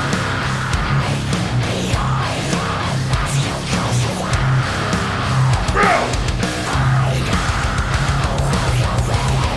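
Power metal band playing full out: distorted electric guitars and bass over fast, driving drumming, with no singing.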